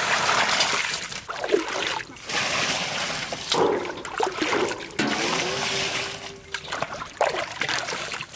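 Water splashing as a steel bowl pours it over bell peppers in a metal basin and scoops more from a water tank. It comes in several separate splashy stretches with short breaks between them.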